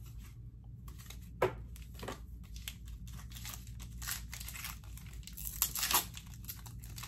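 Foil wrapper of a Pokémon booster pack crinkling as it is handled and torn open. It is a run of small crackles, with louder crinkles about a second and a half in, at two seconds, and near six seconds.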